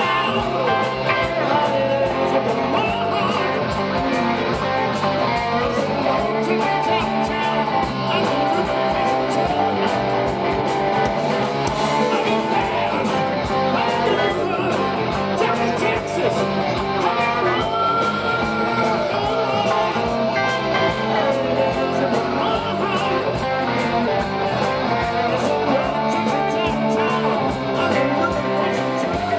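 Live rock band playing a song, with electric guitar, bass and drums.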